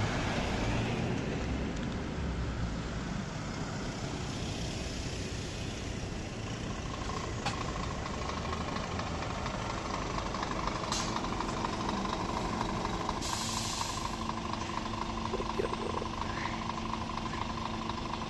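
A car passes close by, then a Scania R450 truck's 13-litre straight-six diesel approaches slowly and draws up, its engine note steady. About two-thirds of the way in there is a short hiss of air from the air brakes.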